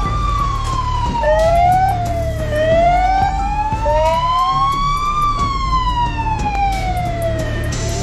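Two emergency-vehicle sirens wailing at once, each slowly rising and falling in pitch over a few seconds, over a steady low rumble.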